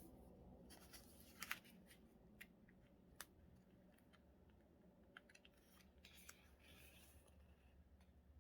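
Faint scissors snipping through paper, a few sharp snips with the loudest about a second and a half in, then a brief soft paper rustle near the end.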